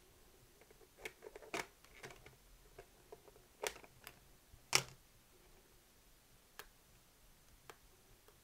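Hand-handling clicks and knocks as a brushed-metal front faceplate and plastic parts are fitted against the open chassis of a 1970 Sony TC-120 cassette recorder: a cluster of sharp taps in the first five seconds, the loudest about five seconds in, then a few sparse clicks.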